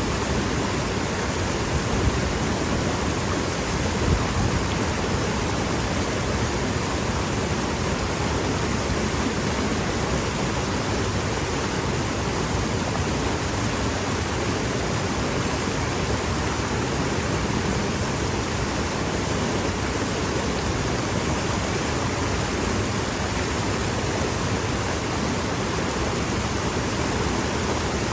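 Stream water rushing downstream, a steady, even wash of noise.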